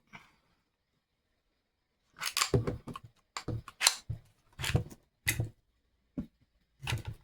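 Metal clacks and rattles from handling a Hi-Point JCP .40 pistol's parts, in about six sharp bursts starting around two seconds in.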